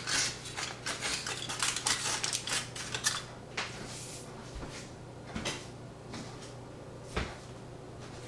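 Kitchen utensils and dishes being handled: a quick run of clicks and scrapes for about three seconds, then scattered single knocks, over a low steady hum.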